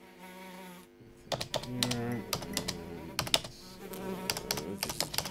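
A fly buzzes briefly, then a computer keyboard is typed on in quick clicks from about a second in.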